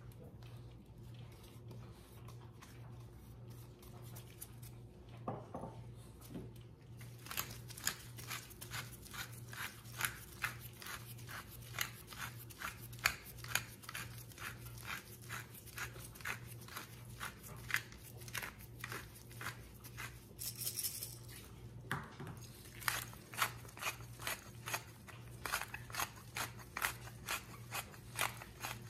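Hand-twisted spice grinder grinding salt and pepper, a steady run of crunching clicks about two or three a second that starts a few seconds in.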